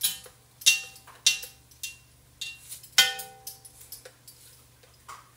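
Kitchenware tapping while dried minced onion is measured out over a cooking pot: a run of sharp taps, each ringing briefly like a small bell. The last strong tap comes about three seconds in, followed by a few fainter ones.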